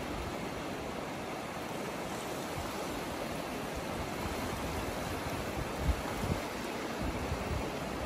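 Small sea waves washing and lapping in shallow water at the shoreline, a steady wash of surf. A couple of brief low thumps about six seconds in.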